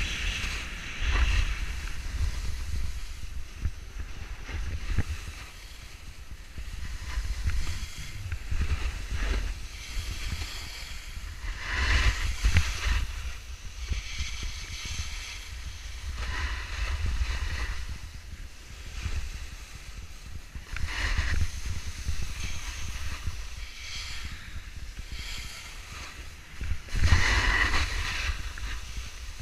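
Wind buffeting an action camera's microphone while skiing downhill, with the hiss and scrape of skis on packed snow swelling at each turn, the loudest near the end.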